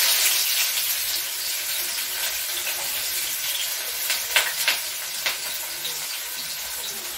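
Chopped onion sizzling as it drops into hot oil in a kadai, the hiss strongest at first and slowly easing off. A few sharp metal clinks about four to five seconds in.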